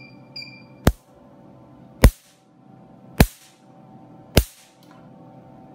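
Nd:YAG tattoo-removal laser handpiece firing single pulses onto the skin: four sharp snaps, evenly about once a second, each one a laser shot. A short beep from the machine comes just before, and its steady hum runs underneath.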